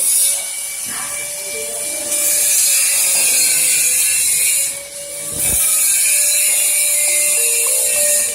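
A power tool running steadily on workpieces in a fabrication shop, a loud hiss over a faint steady motor whine, easing off briefly about a second in and again about five seconds in.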